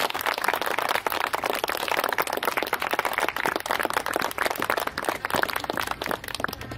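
A small crowd applauding: many hands clapping together in a dense patter.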